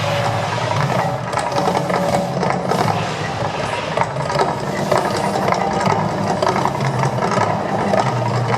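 The Mirage volcano show erupting: a steady low rumble with dense crackling and hissing from its fire and water effects.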